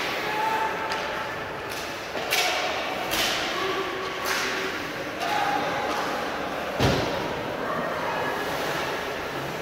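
A basketball bouncing on a gym floor in irregular thumps, the hardest about seven seconds in, with sneakers squeaking in short bursts between them and voices in the background.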